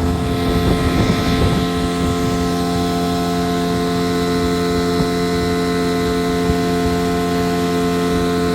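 A 1985 Yamaha 50 hp two-stroke outboard motor running at a steady speed with the boat underway, holding one even pitch.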